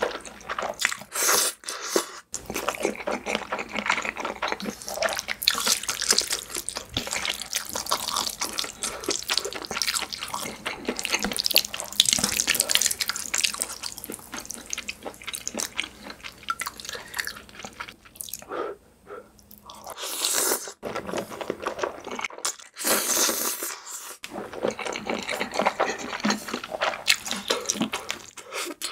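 Close-miked slurping of spaghetti in cream sauce and wet, smacking chewing, a dense run of small sticky clicks with a couple of brief pauses.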